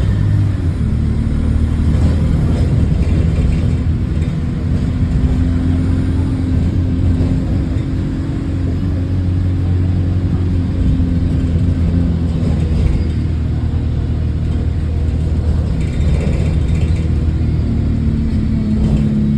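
Bus engine running with a steady low drone, heard from inside the bus, with the sound of an exhaust leak.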